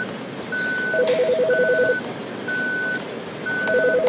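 Electronic beeping: a steady high beep about half a second long, repeating once every second. Twice, about a second in and again near the end, a fast pulsing two-note warble sounds under it.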